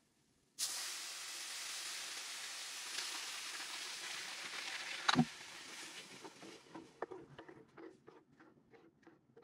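Blended tomato sauce poured onto rice toasting in hot oil in a frying pan, sizzling with a steady hiss that starts suddenly about half a second in. There is a single knock about five seconds in, then the sizzle dies down to scattered crackles and pops. This is the stage of Mexican red rice where the liquid goes onto the fried rice.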